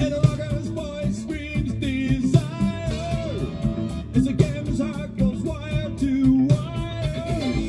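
Rock song with singing and guitar over a steady beat, played from a vinyl record on a Pro-ject Essential turntable with an Audio-Technica AT-VM95E cartridge.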